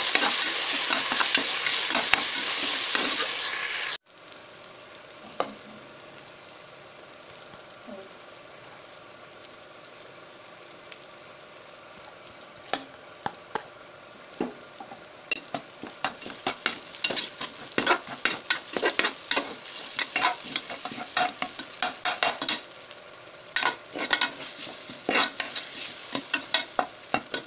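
Onions and tomatoes sizzling loudly as they fry in oil in a pressure cooker pot. After a sudden cut about four seconds in, the sizzle is quieter and a spoon scrapes and knocks against the pot as the masala is stirred, the scrapes coming thick and fast in the second half.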